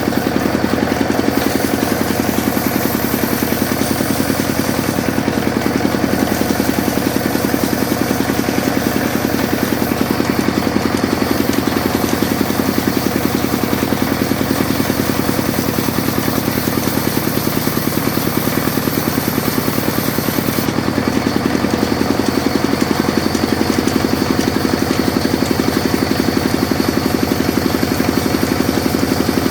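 Sawmill machine running steadily with a constant motor hum and no change in load.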